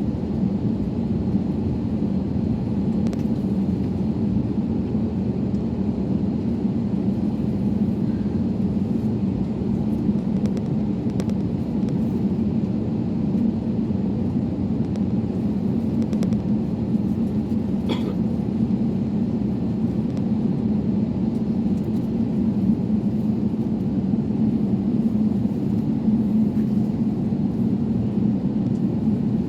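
Steady low rumble of an Airbus A321neo, with a constant low hum and an occasional faint tick or click.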